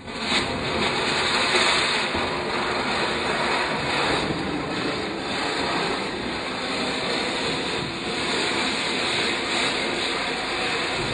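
A Diwali ground firework catching the moment it is lit and hissing steadily as it sprays sparks across a tiled floor, with faint crackling through the hiss.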